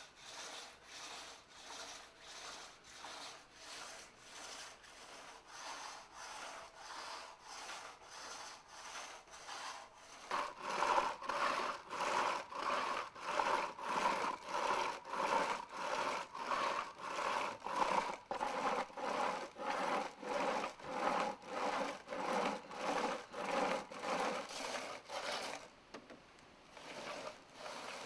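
Stone rubbing against a lacquered bowl spinning on a foot-worked lathe, polishing the hardened coats of lacquer plaster smooth. It makes a rasping scrape that pulses about twice a second as the lathe turns back and forth. It grows louder about ten seconds in and eases off a couple of seconds before the end.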